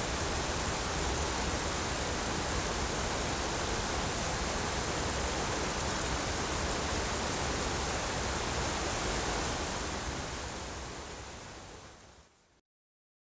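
Large river waterfall: a steady, dense rush of falling water that fades out over the last few seconds.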